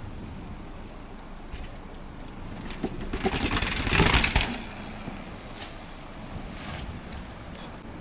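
Mountain bike bumping down a flight of tiled steps: a quick run of knocks and rattles from the tyres hitting each step and the bike's chain and frame, loudest about three to four and a half seconds in, over a steady background rush.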